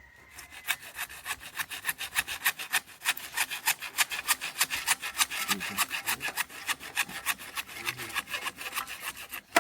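Hacksaw blade cutting through a water pipe: quick, even back-and-forth rasping strokes that start about half a second in and keep a steady pace until they stop just before the end.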